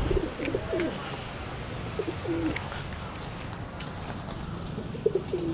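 Domestic pigeons cooing: a few short groups of low, wavering coos, with a few faint ticks between them.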